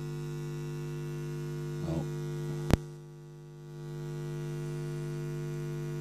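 Steady electrical mains hum with several overtones. About two seconds in there is a brief low murmur, then a single sharp click, the loudest sound. After the click the hum dips quieter for about a second before returning.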